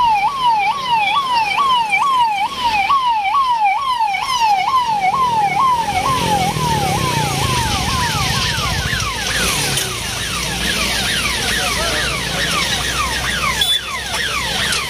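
Police sirens: one wails in a fast warble for the first several seconds, then about six seconds in several more sirens join with quick, overlapping falling sweeps, over the low rumble of motorcycle engines as a column of police motorcycles rides up.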